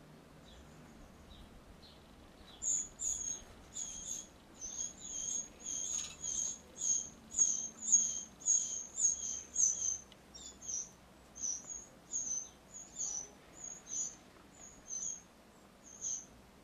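House sparrows chirping: a few faint chirps, then from about three seconds in a steady run of short, high, repeated chirps at about two a second, which grow somewhat weaker after the middle.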